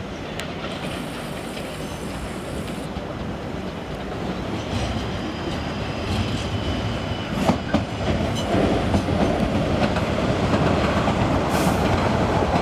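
South West Trains Class 458 electric multiple unit running past over the junction's pointwork. The wheels rumble steadily and grow louder from a few seconds in, with a few sharp clacks over the rail joints about halfway through.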